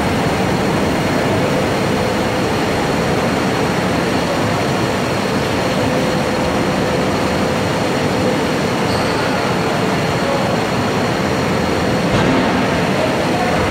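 Bhagwati automatic line polishing machine for granite slabs running steadily: a loud, even mechanical drone of its polishing heads and motors, with faint steady whining tones.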